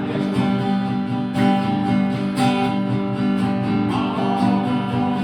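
Acoustic guitar strummed in a steady country rhythm, chords ringing between regular strokes, with no singing over it.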